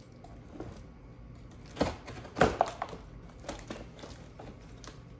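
A cardboard box being handled and pulled at to get it open: scattered knocks, scrapes and crackles of cardboard, loudest in a short cluster about two seconds in.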